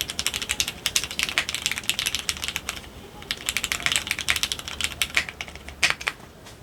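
Typing on a GEONWORKS F1-8X custom mechanical keyboard with fully lubed Cherry MX Nixie switches, no foam and GMK keycaps: quick, even keystrokes, a short break about three seconds in, then more typing ending in a couple of louder strokes near the end.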